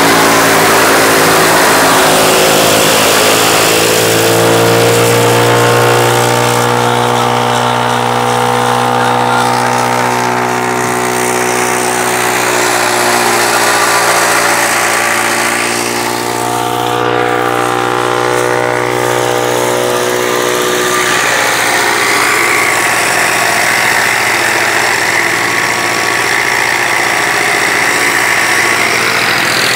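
Tractor-powered silage chopper running under load as green fodder stalks are fed in and shredded: a loud, steady engine-and-machine drone with a constant hum, dipping briefly about halfway through.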